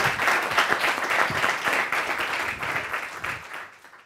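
Audience applauding: a dense run of hand claps that fades out near the end.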